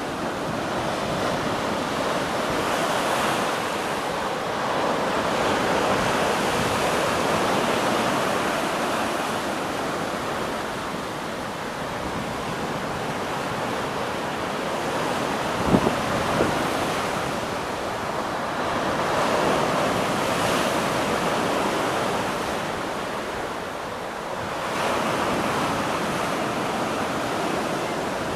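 Sea waves washing in, swelling and ebbing every five or six seconds, with wind buffeting the microphone. There is a short bump about halfway through.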